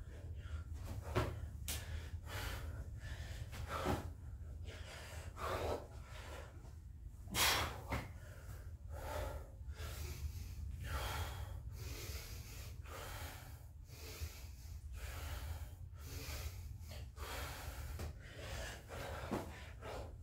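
A man breathing hard and fast from the exertion of burpees, quick noisy breaths in and out, one louder gasp about seven seconds in. A steady low hum sits underneath.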